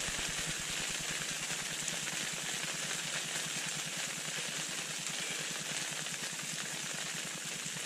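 Camp stove burner running steadily under a pot of water heating for coffee.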